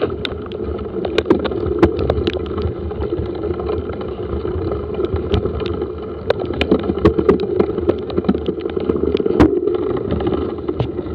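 Bicycle being ridden over rough ground: a steady rumble of tyres and wind, broken by frequent sharp rattles and knocks from bumps, with one louder knock about nine seconds in.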